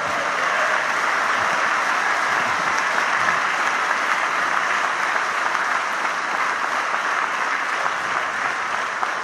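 Audience applauding steadily, the clapping thinning and tapering off near the end.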